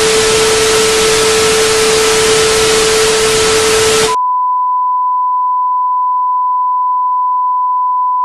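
Loud TV static hiss with a steady lower tone running through it, which cuts off abruptly about four seconds in and gives way to a single steady, higher-pitched test tone: the off-air signal of a television channel going dark.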